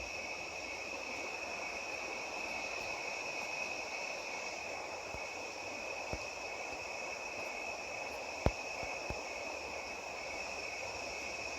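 Chorus of night insects, crickets and katydids, trilling steadily in two high pitches. A few sharp clicks break in, the loudest about two-thirds of the way through.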